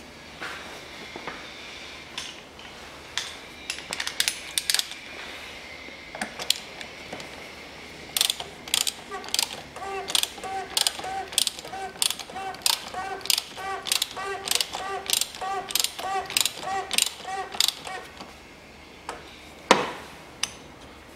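Hand ratchet wrench clicking as it tightens the oil filter housing cap on the engine. A few scattered clicks, then a steady run of ringing clicks, two to three a second, for about ten seconds, and one louder click near the end.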